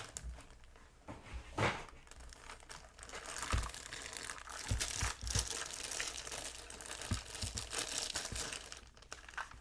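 Packaging crinkling and rustling as it is handled and pulled away, with irregular crackles and a few sharp clicks and knocks.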